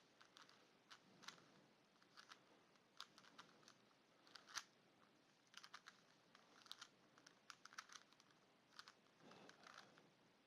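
Faint plastic clicks of a 3x3 Rubik's Cube's layers being turned by hand, coming singly and in quick irregular runs, as a move sequence is repeated to finish the last layer.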